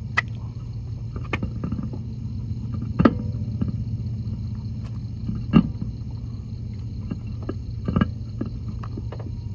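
A spare wheel knocking against the car's hub as it is worked onto the studs: about five sharp clanks a second or two apart, the loudest a little past halfway, over a steady low hum.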